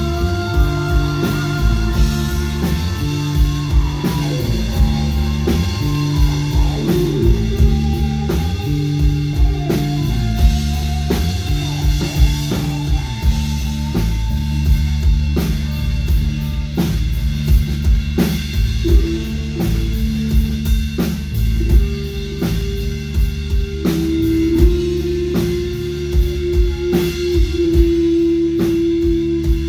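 Live rock band playing an instrumental passage: drum kit keeping a steady beat under bass and guitar, with long held notes that step down in pitch early on and settle on one long low note near the end.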